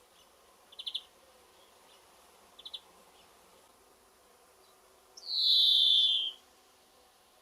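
European greenfinch singing: two brief bursts of quick twittering notes, then, about five seconds in, its long wheezing note, buzzy and slightly falling and lasting just over a second.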